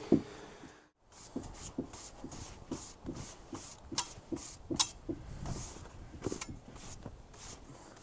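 Stiff hand brush sweeping sawdust off a freshly sawn white oak slab: short, brisk scrubbing strokes, about two to three a second, starting about a second in.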